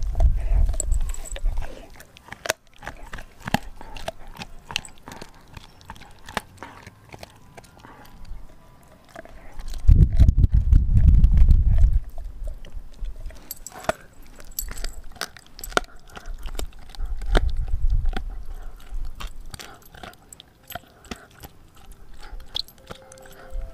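A Doberman gnawing a raw frozen pig's foot: chewing with many sharp cracks and crunches of teeth on bone and frozen meat. A loud low rumble swells for about two seconds near the middle, and again more weakly later.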